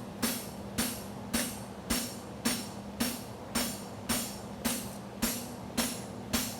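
Hammer striking a hot steel horseshoe on an anvil in an even rhythm, a little under two blows a second, flattening the shoe during forging, over a steady low hum.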